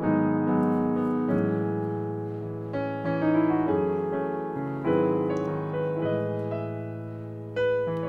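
Background piano music: notes and chords struck every second or two and left to ring out and fade.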